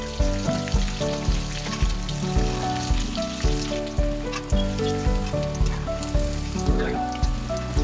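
Marinated chicken pieces deep-frying in hot oil in a kadai: a steady sizzle with fine crackling. Background music with a steady beat plays over it.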